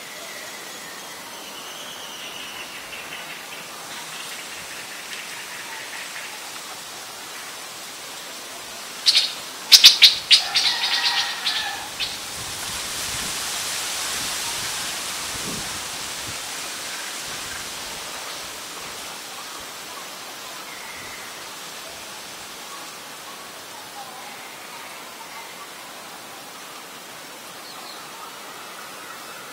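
Steady outdoor hiss with faint bird calls. About nine seconds in, a loud, rapid chattering run of sharp clicks lasts some three seconds, followed by a swell of rushing hiss that fades away.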